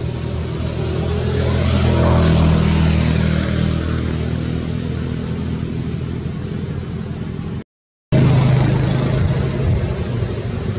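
Motor vehicle engine running nearby, a steady low hum that swells about two seconds in and eases off. It cuts out for a moment near the end, then a similar low engine hum comes back.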